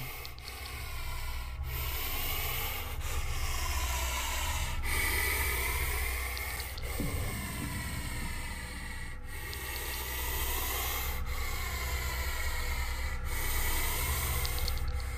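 Puff adder hissing: long, loud hisses of exhaled air, broken by short pauses about every two seconds.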